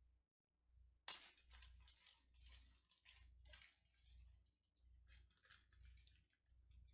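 Faint handling noise: soft rustling and small irregular clicks as the kalimba's accessories are taken out of their bag, with one sharper click about a second in.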